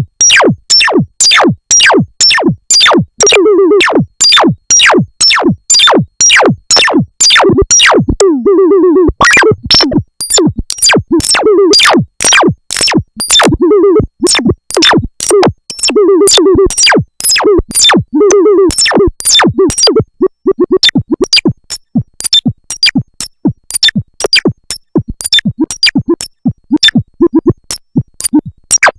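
Arturia MicroBrute monophonic analog synthesizer playing a sequenced chiptune-style pattern: a steady pulse of sharp clicky notes, about two to three a second, with a buzzy pitched note every couple of seconds. After about twenty seconds the pattern turns quicker and more broken up.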